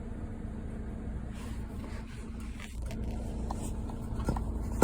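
Pickup truck running, heard from inside the cab: a steady low engine and road rumble, with a few faint clicks in the second half.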